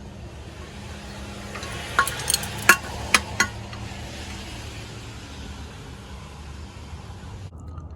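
A cluster of sharp metallic clinks about two to three and a half seconds in: the spare tyre's lowering chain and hook being unhooked from the wheel. A steady low hum runs under them.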